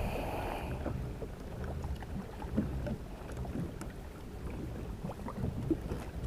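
Wind buffeting the microphone on a kayak at sea, a steady low rumble, with scattered faint small knocks and clicks.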